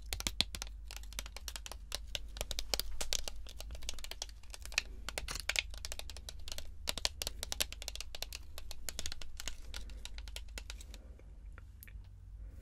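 Fingernails tapping and picking at a plastic blister pack on a cardboard backing card, the plastic crinkling and crackling as it is pried open. The crackling dies away about eleven seconds in.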